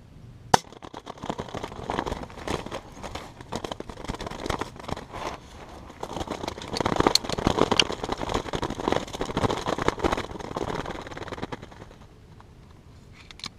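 A pellet gun fires once with a sharp crack, then a shot Gambel's quail flaps wildly inside a wooden stick cage trap for about eleven seconds, wings beating in rapid irregular flurries, before going still.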